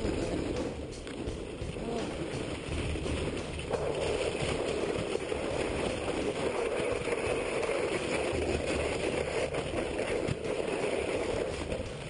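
Dog sled running over ice: a steady scraping rush from the runners, with scattered knocks, growing louder about four seconds in.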